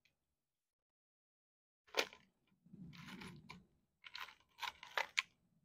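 Small steel hardware handled on a workbench: a sharp clink about two seconds in, a short rustle, then a few quick clicks near the end. These are washers and bolts being picked over and set on a digital pocket scale to make up a 2.7-gram propeller balance weight.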